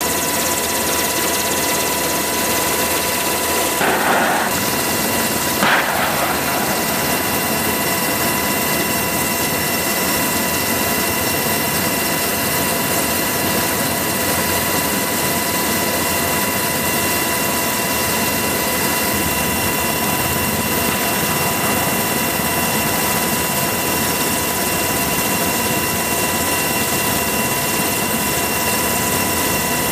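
Helicopter turbine engines and rotor running steadily: a constant rushing noise with a steady whine. Two short louder bursts come about 4 and 6 seconds in.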